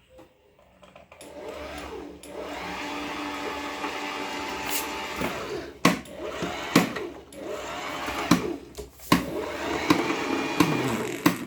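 Electric sewing machine motor running, first in a steady run of a few seconds. After that come shorter runs that speed up and slow down, with sharp clicks between them.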